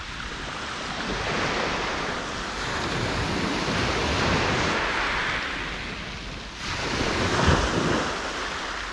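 Small waves breaking and washing up a shingle beach, swelling and easing, with wind buffeting the microphone.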